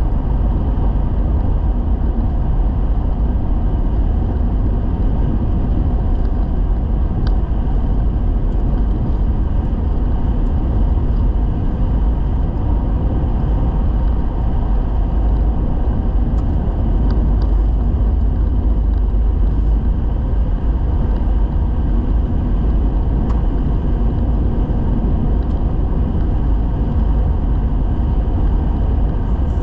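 Steady low rumble of a vehicle driving on a gravel road, tyre and engine noise heard from inside the cabin, with a few faint ticks.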